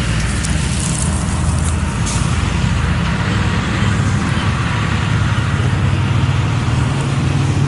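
Heavy construction machinery's engine running steadily with a low hum, with a few faint clicks in the first couple of seconds.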